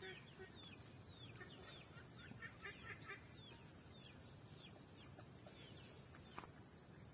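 Faint chirping of birds: short calls that drop in pitch, repeated several times a second for the first five seconds or so, with a few soft lower calls among them. A single click about six seconds in.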